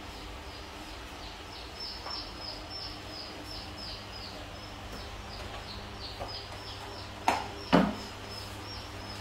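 High, short chirps repeating about three times a second over a steady low hum, with two brief louder sounds about seven and a half seconds in.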